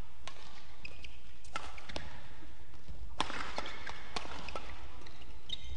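Badminton rally: rackets strike a shuttlecock with sharp cracks every second or so. Court shoes squeak briefly on the floor.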